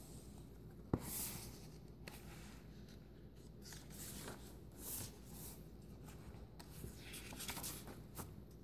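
Faint rustling of paper as the pages of a hardcover picture book are turned, in several soft swishes, with a sharp click about a second in.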